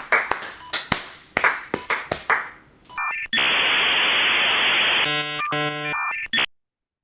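A few people clapping, followed by a harsh electronic sound effect: a burst of static-like hiss, then a buzzing tone that cuts off abruptly into silence.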